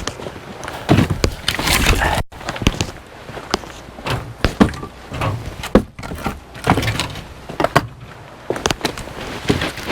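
Irregular wooden knocks and thuds of split firewood pieces being tossed and knocking together.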